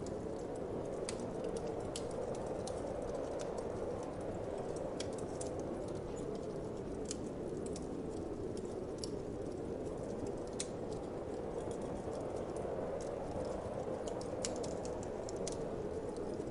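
Wood fire crackling, with irregular sharp snaps and pops, over a steady low whoosh of wind.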